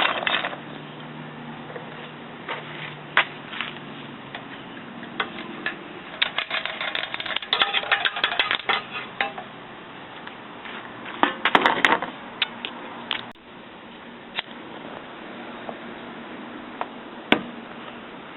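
Irregular light metallic clinks and clatters, in scattered single ticks and short rattling clusters, over a steady faint hiss.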